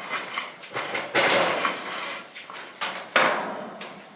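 Clattering knocks and scrapes of steel building panels being handled. The loudest comes about a second in and a sharp one just after three seconds, each trailing off.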